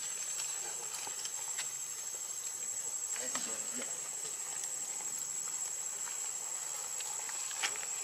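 Insects droning with a steady high-pitched tone, with a few faint crackles of dry leaves under a baby monkey's hands and feet.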